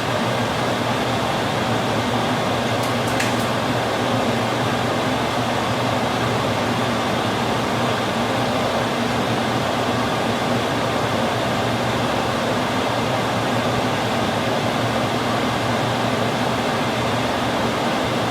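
Steady whirring fan-like noise with a low hum, unchanging throughout, with a faint light click about three seconds in.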